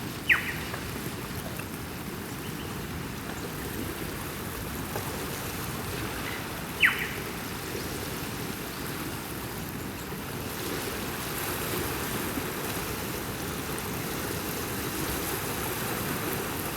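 Ocean waves washing steadily, with two short, sharp chirps falling in pitch, one right at the start and one about seven seconds in.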